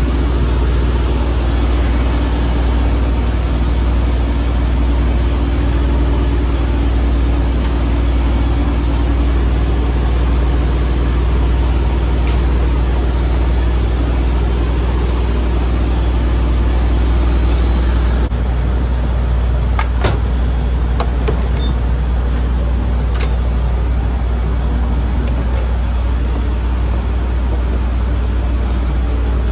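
Semi-truck diesel engine idling steadily with a loud low drone. The drone thins a little about two-thirds of the way through, and a couple of sharp clicks follow.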